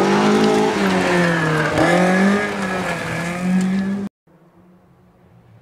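Rally car's engine running hard as the car comes through a gravel bend, its pitch dipping and climbing again about two seconds in. The sound cuts off abruptly about four seconds in.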